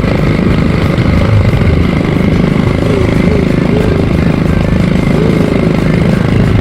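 ATV engine running steadily during a ride.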